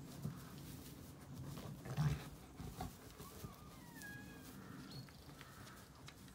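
Zwartbles rams milling and jostling in a straw-bedded pen: low animal grunting with movement, and a louder low burst about two seconds in.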